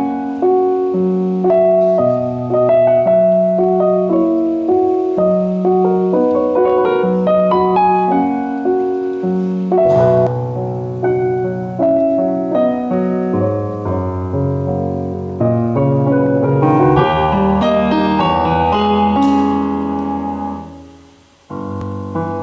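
Kawai ES6 digital piano played, sustained chords with a melody above and bass notes below. Near the end the playing fades away to near silence, then piano music starts again.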